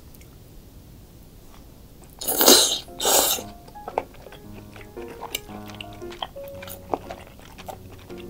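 Two loud slurps of spicy cheese tteokbokki noodles about two and three seconds in. After them, background music with a steady run of notes, under small wet chewing and mouth clicks.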